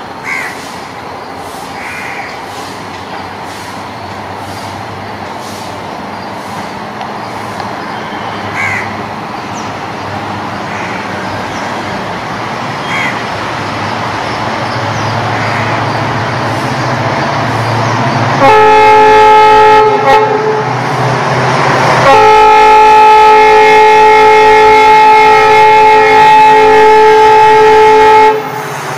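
WDG4D (EMD GT46ACe) diesel locomotive approaching with a passenger train, its engine rumble slowly growing louder, with a few short crow caws. About two-thirds of the way in, its horn sounds a chord of several tones: one blast of about two seconds, a brief break, then a held blast of about six seconds, the loudest sound here.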